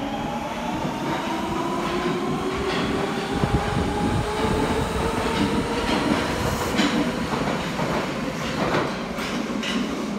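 Nagoya Municipal Subway Meijo Line train pulling out of an underground station. Its motors give a whine of several tones that rises in pitch over the first few seconds as it accelerates, over a steady rumble of wheels on rail, with a few sharp clacks later as the cars run past.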